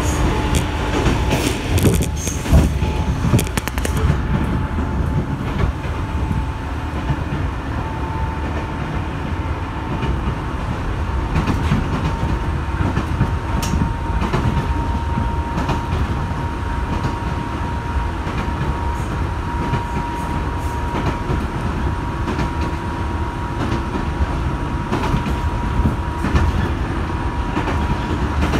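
A 205 series electric commuter train heard from inside the carriage, running at speed with a steady low rumble. A run of clicks and knocks sounds in the first few seconds. A thin steady whine runs underneath and rises slightly in pitch.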